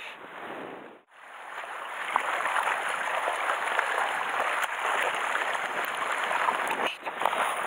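Sea water lapping and sloshing against shore rocks, a steady wash with small splashes through it. It cuts out briefly about a second in, then comes back and holds steady.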